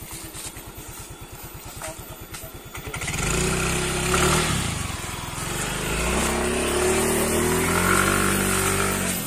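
Quad bike (ATV) engine idling with an even low pulse, then from about three seconds in running louder, its pitch rising and falling as it revs.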